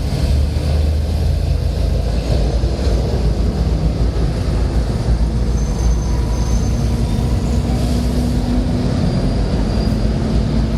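A large vehicle's engine running, a steady heavy low rumble with a faint hum that comes in about halfway through.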